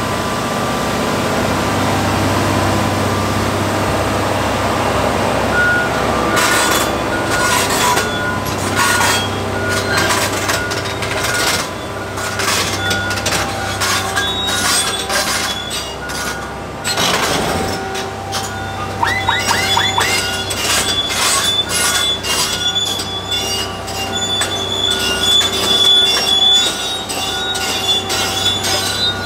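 Komatsu PC1250 excavator's steel crawler tracks clanking and squealing as the machine travels, over the steady low hum of its diesel engine. The clanks start about six seconds in and come quickly and irregularly, with high-pitched squeals from the track running through the rest.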